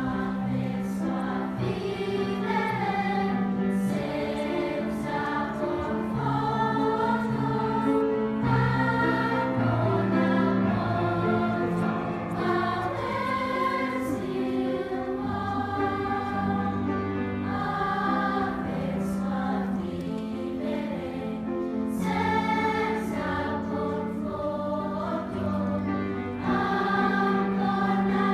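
Children's choir of 9- to 14-year-olds singing in Italian, a continuous sung passage with the notes changing about every second.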